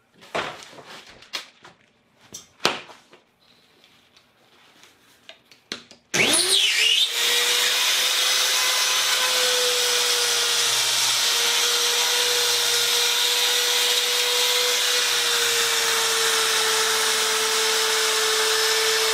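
A few light knocks, then about six seconds in a spiral-cutting rotary saw fitted with a circle-cutting attachment starts up. Its pitch rises quickly and it then runs steadily with a high whine while the bit cuts a circle through DensShield tile backer board.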